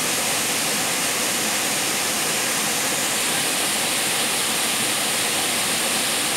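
Waterfall pouring into a rock pool: a steady rush of falling water at an even level throughout.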